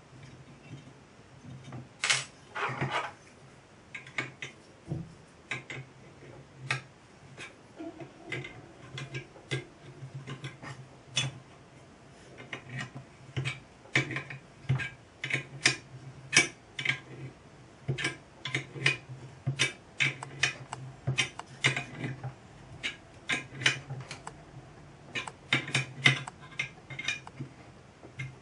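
Irregular light metallic clicks and taps from handling and fitting the brass water-gauge fittings on a small copper model boiler, with a louder cluster of clatter about two seconds in.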